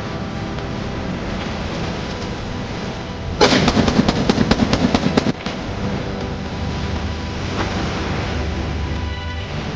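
Background music, with a rapid burst of about a dozen sharp gunshot-like cracks about three seconds in, lasting about two seconds and cutting off suddenly.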